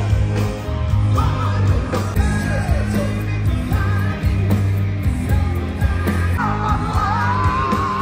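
Rock band playing live through a large stadium PA, with heavy sustained bass and drums and a singing voice over it that wavers in pitch in the last couple of seconds.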